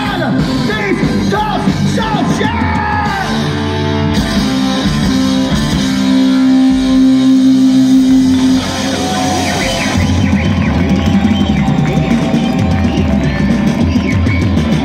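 Live rock band playing with electric guitars, drums and singing. A long held chord comes in about four seconds in and breaks off after about eight and a half seconds, and the full band is playing again from about ten seconds.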